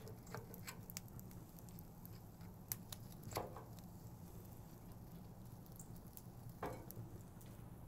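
Faint crackling and popping from the flared-up charcoal and mesquite fire at the bottom of a Pit Barrel Cooker, over a steady low hum, as a hung rack of ribs is lifted out on its metal hook. Two brief louder knocks come about three and a half seconds and nearly seven seconds in.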